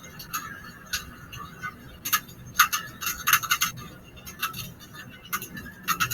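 Stick welding arc crackling and popping irregularly as the electrode burns, over a steady hiss.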